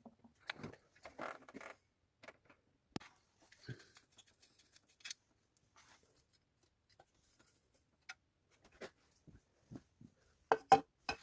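Scattered clicks, taps and light metallic knocks of hand tools on car parts, with a louder cluster of knocks near the end.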